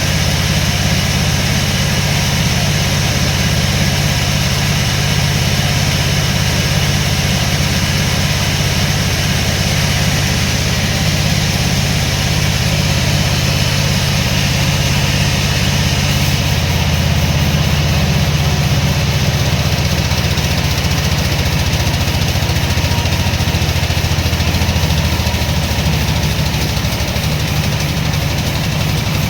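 An engine idling steadily with a low, even throb. It is plausibly the sawmill's power unit, running with no cut being made.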